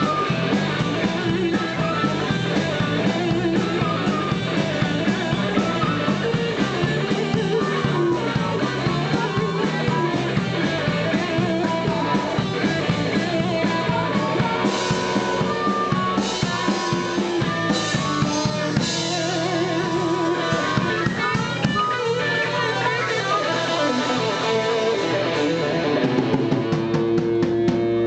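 Blues-rock band playing a song: guitars over a steady drum kit beat.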